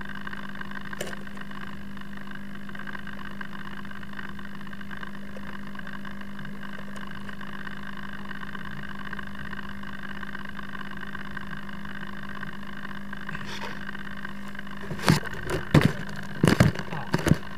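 Steady electrical hum with several fixed tones, picked up by the FPV plane's onboard camera while the plane sits powered up in the grass. About three seconds from the end, a cluster of loud knocks and rustles as the plane is picked up and handled.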